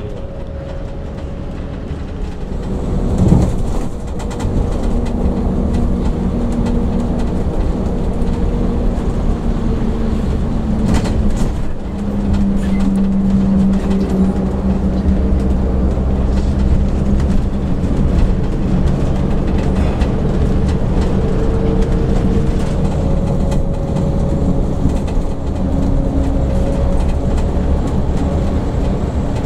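Mercedes-Benz OH 1526 bus driving along the highway: engine drone and road rumble heard from inside the bus, the engine note rising and falling as its speed changes, with a sharp knock about three seconds in.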